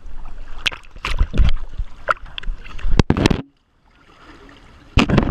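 Water splashing and sloshing in irregular bursts, with a brief dropout a little past halfway.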